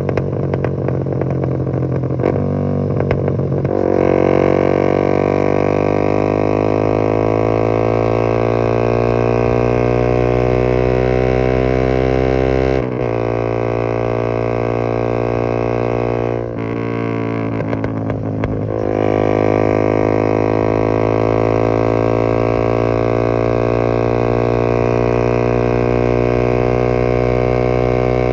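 Yamaha MT15's single-cylinder engine through an Austin Racing full-system exhaust, held at raised revs that slowly climb. The revs fall back about 13 seconds in and again around 17 to 19 seconds, with brief exhaust crackles where the throttle closes.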